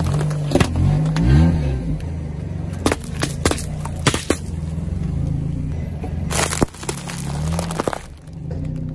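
A car engine running with a low hum while a tyre rolls over and crushes things: a series of sharp cracks, crunches and pops, with a brief rise in engine pitch about a second in and a longer burst of noise a little after six seconds in.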